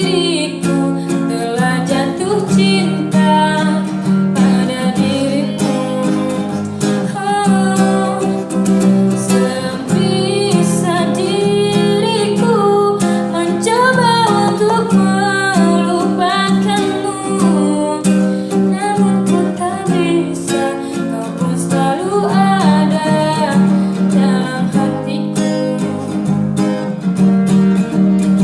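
A song: acoustic guitar strummed with a voice singing a melody over it.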